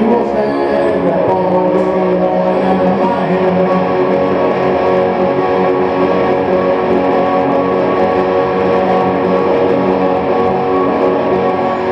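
Guitar played on its own, notes and chords ringing out steadily in a slow instrumental passage.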